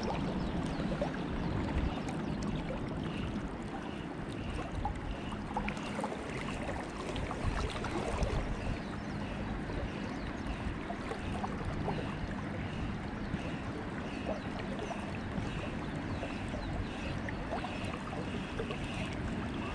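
Steady rush of river water with some wind on the microphone, and a faint high note repeating about twice a second.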